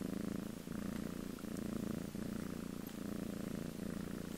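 Black-and-white cat purring steadily as it dozes, the purr swelling and easing with each breath about every second and a half.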